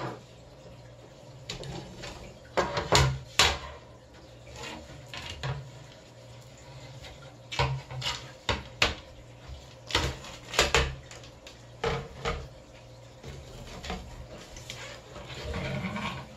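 Scattered light clicks and knocks of a window-screen frame being handled while the old spline is pulled out of its channel, over a faint steady low hum.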